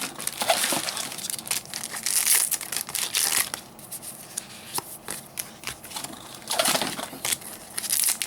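Foil trading-card booster pack wrappers being torn open and crinkled, in irregular bursts with small clicks of cards being handled.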